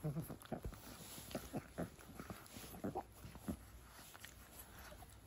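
Pug puppy making a quick series of short, quiet grunts and snuffles while play-biting a hand; most come in the first three and a half seconds, with fewer near the end.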